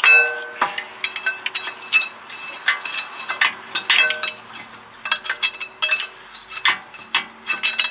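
Steel screwdriver levering fairly worn rear brake pads out of a 2013 Jaguar XF's caliper carrier: a run of sharp metal clinks and scrapes, some of them briefly ringing. The loudest clink comes right at the start.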